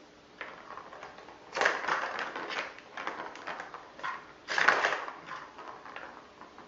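A plastic ball rolling and clattering around a plastic circuit-track cat toy as the kittens bat at it, with two louder bursts of rattling, about a second and a half in and again about four and a half seconds in.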